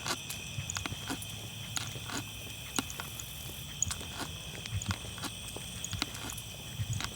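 Steady high-pitched insect chorus of several constant overlapping tones, with irregular clicks from walking footsteps.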